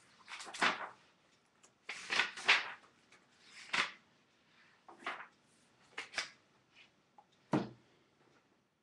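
Handling noise: about ten short rustles and knocks at irregular intervals, as things are moved about close to the microphone.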